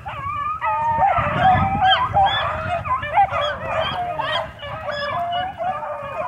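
A large pack of young hounds baying together in a continuous chorus of many overlapping yelps and bawls, easing slightly near the end. It is the sound of the pack running a rabbit's track.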